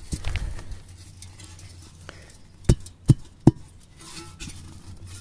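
A leftover piece of a dynamite-type firecracker burning and going off bit by bit: a crackling burst at the start, then three sharp pops less than half a second apart around the middle.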